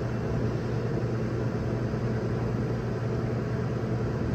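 Refrigeration compressor of a reach-in cooler running with a steady hum, its suction pressure falling fast. The technician takes this for a blocked system, a clogged capillary tube.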